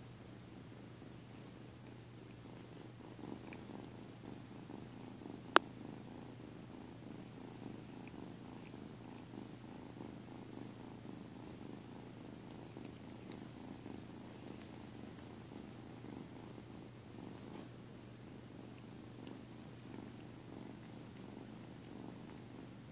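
Domestic cat purring close up, a steady pulsing rumble that grows stronger about three seconds in. A single sharp click about five and a half seconds in.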